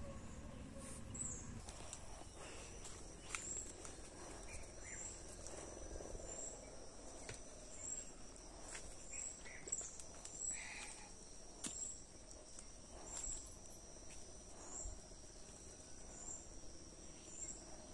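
Insects chirping: a steady high-pitched drone with a short, higher chirp repeating about once a second, and a few faint clicks scattered through.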